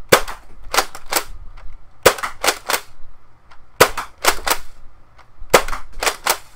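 Nerf Rival Saturn pump-action foam-ball blaster being primed and fired over and over, four times in a row. Each cycle is a quick set of three sharp plastic clacks, the pump racked and the shot, coming about every 1.7 seconds.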